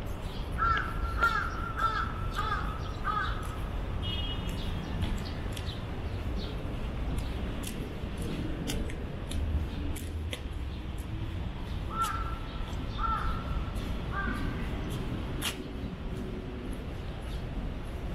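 Crow cawing: a run of five calls in the first few seconds, then three more about twelve seconds in, over a steady low rumble.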